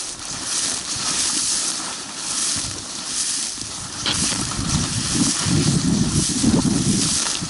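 Footsteps through a dense thicket of leafy shrubs, with branches and leaves swishing against the walker's legs. It gets louder about halfway through.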